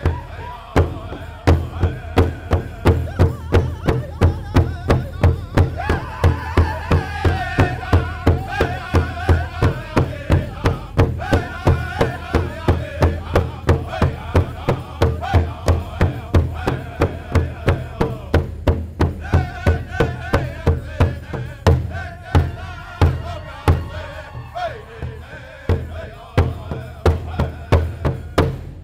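Powwow drum song: a group of men singing in wavering voices over a steady big-drum beat, about two beats a second.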